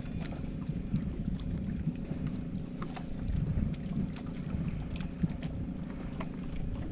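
Wind buffeting the microphone and water lapping against the hull of an outrigger fishing boat, a steady low rumble with a few light clicks and knocks.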